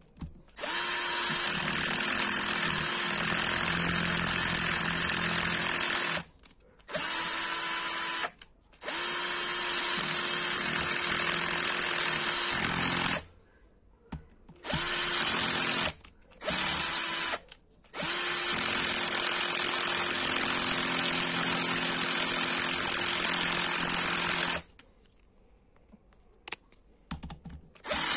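Cordless drill/driver whirring in short runs that stop and start about seven times, running the nuts down onto the cylinder head studs of a 1995 Honda CR250R two-stroke engine at a low torque setting.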